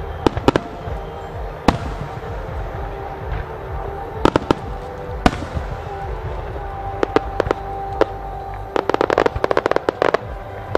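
Aerial firework shells bursting with sharp, scattered reports, then a rapid string of bangs near the end, with music playing throughout.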